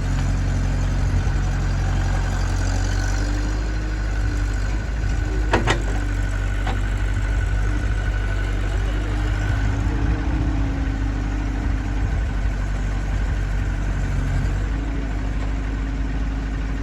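Diesel engines of a backhoe loader and tractor running steadily. There is a sharp metallic clank about five and a half seconds in and a lighter knock about a second later.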